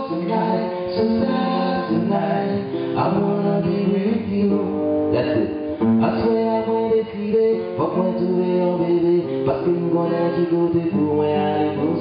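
Acoustic guitar strumming chords, playing a song accompaniment live.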